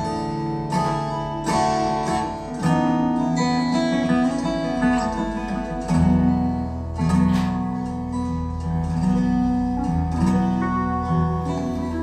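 Acoustic guitar music, plucked and strummed chords, with a deeper bass part joining about halfway through.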